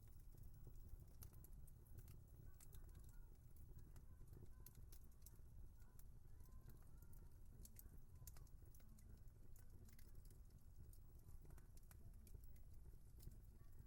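Faint wood fire crackling: an irregular scatter of small sharp pops and ticks over a low steady rumble of burning.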